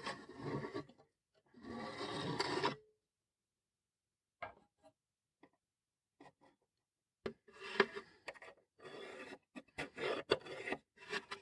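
A steel rule and a combination square scraping over plywood while a pencil marks the wood: two longer scrapes in the first three seconds, then a run of short scratchy strokes and light knocks in the last few seconds.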